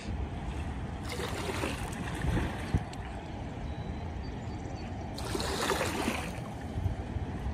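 Fast water rushing out of a dam spillway, a steady low rumble with two louder hissing swells, about a second in and again around five seconds in. A single sharp click just before three seconds.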